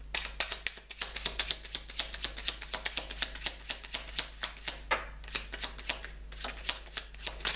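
A deck of tarot cards being shuffled by hand: a rapid run of crisp card clicks and flicks, thinning to scattered clicks after about five seconds.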